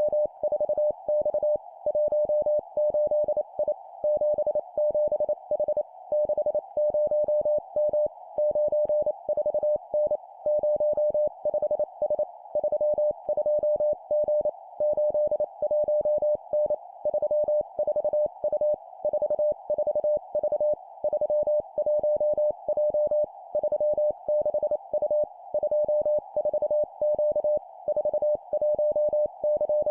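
Morse code (CW) sidetone: one steady pitched beep keyed on and off in rapid dots and dashes at 25 words per minute, sending three-character groups of two digits followed by a letter, with short pauses between groups.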